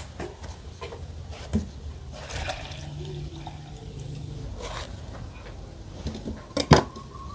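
Drinking water pouring and glugging from a large plastic water-refill gallon into a plastic jug, with a sharp knock a little before the end.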